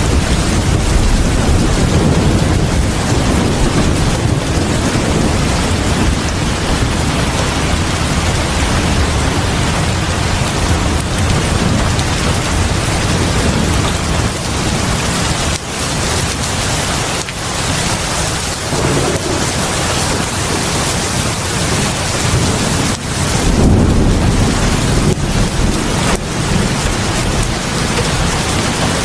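Heavy rain pouring steadily onto a house porch and the ground in front of it: a dense, loud hiss with a deep low rumble underneath, swelling louder again about three-quarters of the way through.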